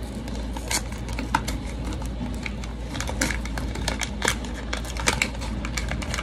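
Irregular sharp clicks and taps of hands working with ingredients and packaging over a plastic mixing bowl, with a steady low hum underneath.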